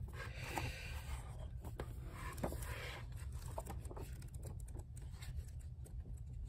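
Photobook pages being flipped quickly by hand: soft paper rustling with many light ticks of pages slapping past.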